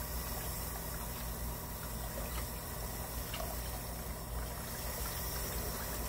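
Water sloshing and running in a kitchen sink as a cast-iron motorcycle cylinder is moved about in soapy water, with a few faint small knocks, over a steady low hum.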